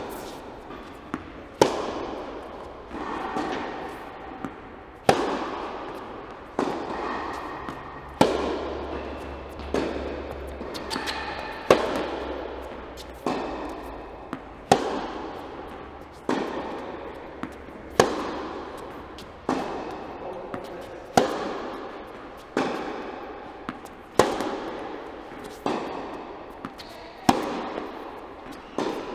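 Tennis balls struck back and forth with racquets in a steady baseline rally, a sharp pop about every one and a half seconds. Each hit echoes through the large indoor tennis hall.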